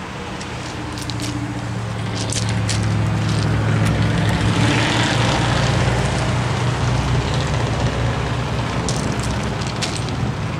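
An engine's low, steady hum that swells louder over the first few seconds and eases off toward the end, like a motor vehicle going by.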